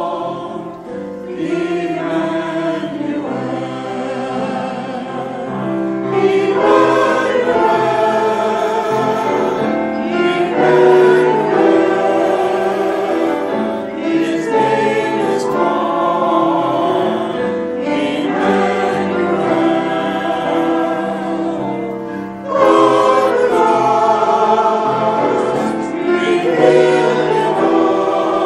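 Choir singing a hymn with accompaniment, in phrases that swell and fall, growing louder about six seconds in and again near the end.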